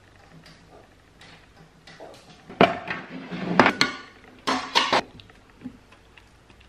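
Metal biscuit tin being opened by hand: the tin lid scrapes and clanks as it is worked off, then two sharp metallic clanks follow about two-thirds of the way through.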